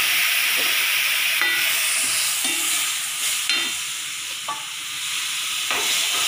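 Water poured into a hot metal kadai of frying potatoes and shallots, sizzling loudly and throwing up steam, with a steel spoon stirring and scraping the pan. The sizzle eases after about four seconds.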